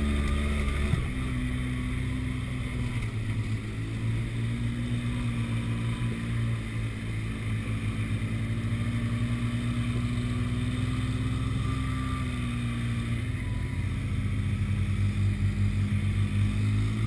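Side-by-side UTV engine running steadily while driving on a dirt track, heard from inside the open cab. Its pitch settles lower about a second in, then holds, easing off briefly a few seconds before the end.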